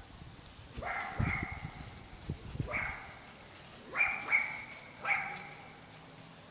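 Chocolate Labrador retriever puppy barking: about six short, sharp barks, some in quick pairs, with a few dull low thumps in the first couple of seconds.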